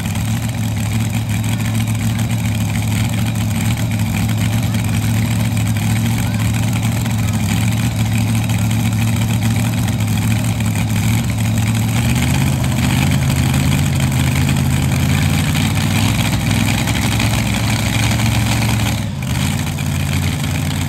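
Modified V8 pulling tractor engine idling with a loud, steady low note. The revs step up slightly about twelve seconds in and drop briefly near the end.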